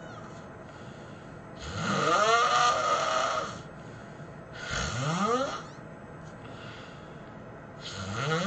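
A person snoring heavily: a long snore about two seconds in, a shorter one around five seconds, and another starting near the end. Each snore rises in pitch as it goes.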